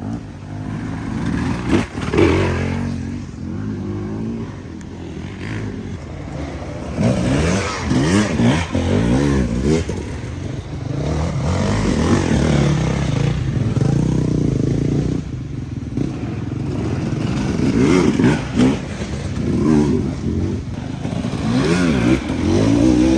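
Enduro dirt bikes riding past on a muddy race course, their engines revving up and down again and again as the riders work the throttle.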